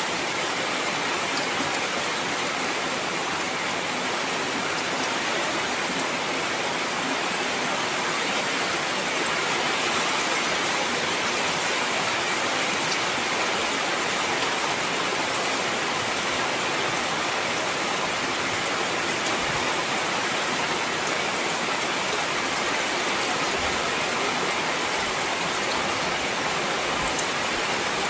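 Heavy rain falling steadily as a dense, even hiss, with no letup.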